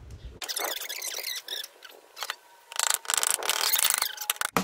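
Nails squealing in the wood as they are pried out of a birdhouse panel with a claw hammer, in two drawn-out bouts, the second louder. A sharp knock near the end.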